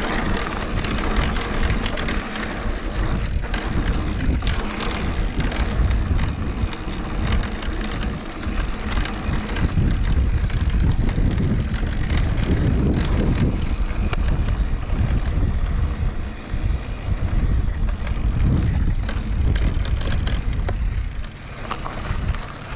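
Mountain bike riding along a dirt trail: tyre noise and the bike rattling, with many small knocks, under wind rumbling on the microphone.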